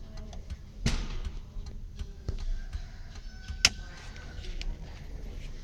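Kia Pride CD5's hazard flasher ticking in a regular rhythm, a few ticks a second, over a steady low engine idle. One sharper, louder click comes about two-thirds of the way in.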